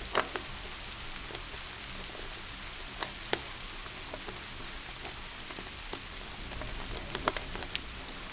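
Steady rain hissing, with a crackling wood fire in a fireplace giving scattered sharp pops: a couple just after the start, two about three seconds in, and a quick cluster near the end.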